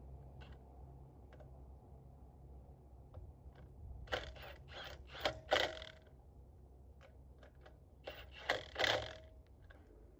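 Metal parts and hand tools clinking and rattling in two bursts, about four seconds in and again about eight seconds in, with a low steady hum underneath.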